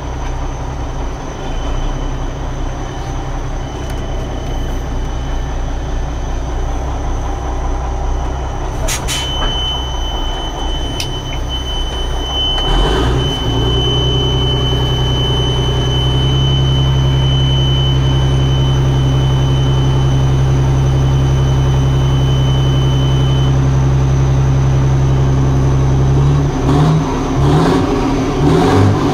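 Marmon 57P semi truck's diesel engine running, heard from inside the cab: idling at first, then held at a higher steady speed from a little under halfway, and revving unevenly near the end. A click about a third of the way in sets off a thin, steady high tone that runs for about fourteen seconds.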